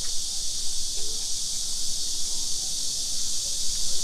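A chorus of cicadas buzzing in a steady, unbroken high-pitched drone.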